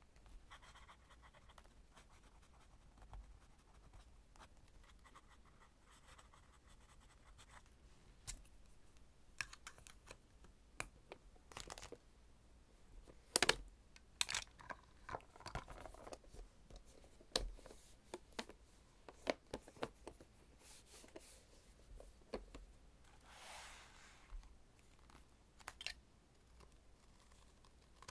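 Nib of a Lamy fountain pen scratching faintly on journal paper for the first several seconds, then a series of sharp plastic clicks and taps as a plastic pen case and the journal are handled, the loudest click about 13 seconds in, with a short rustle a little after 23 seconds.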